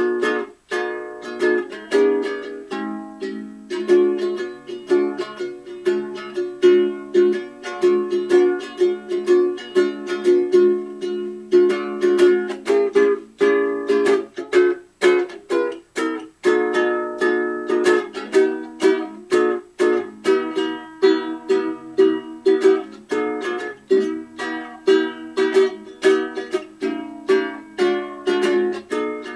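Background music: an instrumental passage of quick, steadily strummed ukulele chords, with no singing.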